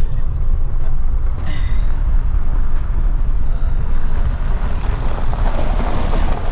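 Strong wind buffeting the microphone: a loud, gusty rush with no steady tone, growing fuller and louder in the second half.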